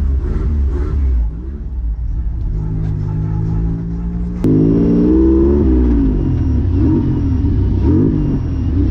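A 2000 Toyota MR2 Spyder's swapped twin-turbo 1MZ-FE V6 revving up and down repeatedly at low speed. The first part is heard from inside the cabin; about halfway through the engine becomes suddenly louder, with quicker rises and falls in pitch.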